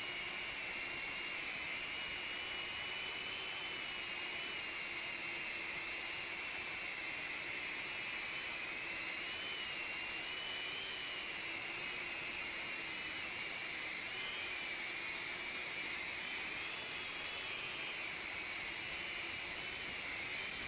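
Ducted drone's electric motors and propellers whining steadily over a constant hiss, the pitch drifting slightly up and down as the throttle changes, heard from the drone's own camera.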